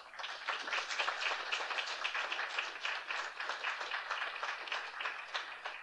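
Audience applauding: a dense patter of many hands clapping that starts at once and thins out near the end.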